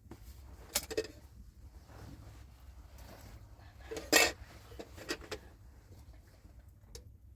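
Pots and dishes being handled: a few sharp knocks and clatters, the loudest a little after four seconds in.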